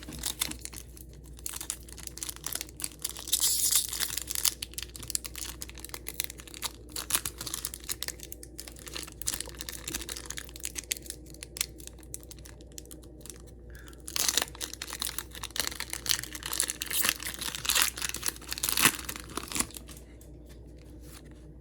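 Pokémon card booster packs and cards being handled: foil wrappers crinkling and tearing, and cards rustling and flicking against each other in irregular spells, busiest about three seconds in and again from about fourteen to nineteen seconds.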